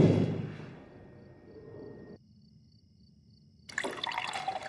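A heavy thud dies away in the first second. After a near-silent pause, tea starts pouring from a brass kettle into a small ceramic cup near the end.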